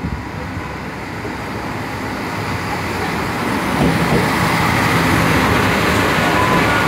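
Two coupled SNCF X73500 diesel railcars arriving at low speed. The diesel engines and the wheels on the rails grow louder over the first four seconds as the train draws level with the listener and passes close by, then hold steady.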